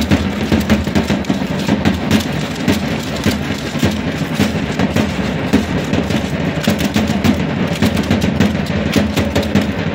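Matachines dance music: a drum beaten in a fast, steady rhythm mixed with the dense clatter of dancers' rattles and stamping feet, over a steady low hum.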